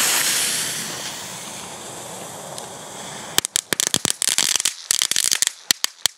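Two small F1 youth fireworks ('Meteoriten'): their lit fuses hiss steadily, loudest at first and then fading. About three and a half seconds in they break into a fast, irregular crackle of sharp snaps, which stops at the end.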